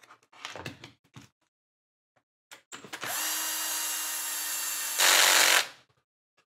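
Bosch cordless screwdriver running for about three seconds, driving an M3x12 flathead screw into a plastic RC car chassis, louder for the last half second before it stops. A few light clicks of plastic parts being handled come first.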